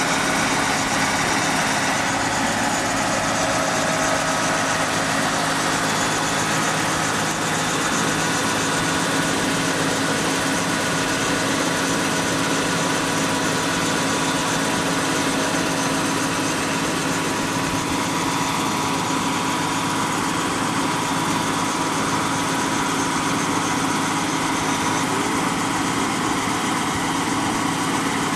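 Tractor engine running steadily, driving the hydraulics of a three-point-hitch well-drilling rig.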